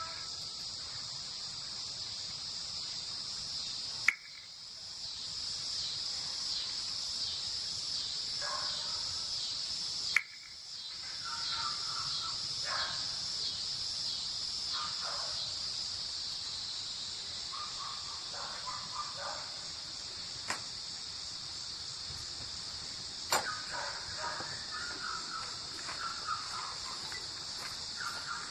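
Steady high-pitched insect chorus, crickets or similar, with a fast pulsing shimmer, outdoor night-time style ambience. Faint intermittent chirps come and go, and three sharp clicks are spread through.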